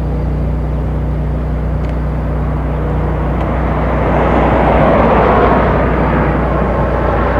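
A vehicle passing by, its noise swelling to a peak about five seconds in and fading again, over a steady low hum.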